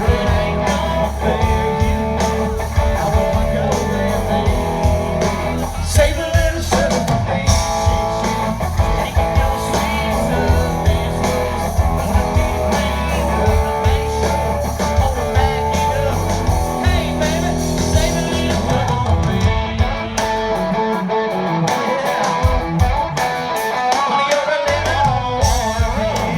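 Live country-rock band playing with a male lead singer and electric guitar over bass and drums. The low end drops out for a few seconds near the end, then comes back.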